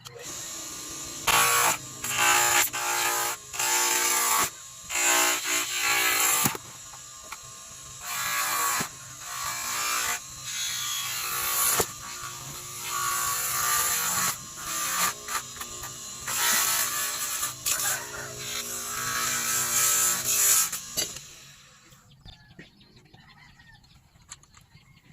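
Small handheld electric power tool working the kettle's metal body: its motor whirs steadily, with repeated louder, gritty passes as the tool bears on the metal, and it stops about 21 seconds in.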